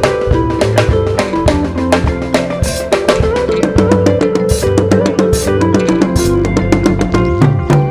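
A live band playing a sebene: a drum kit with kick, snare and rimshots keeps a fast, busy beat over bass guitar, lead guitar and keyboard.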